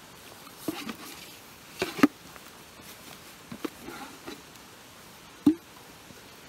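A few sharp knocks and clatters from camp cooking gear being handled, irregularly spaced, with a double knock about two seconds in and the loudest single knock near the end.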